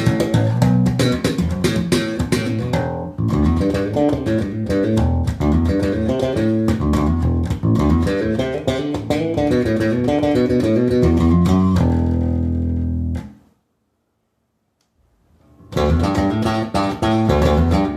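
Peavey RJ IV electric bass played through a Tube Works RT 3300 tube head and Marshall 2x15 cabinet, running a busy line of quick plucked notes. About twelve seconds in a held note rings, then is cut off for about two seconds of silence before the playing starts again.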